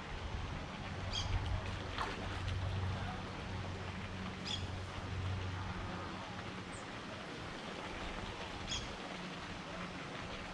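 Outdoor ambience of a steady low rumble, with a bird giving a short high call every three to four seconds and a single sharp click about two seconds in.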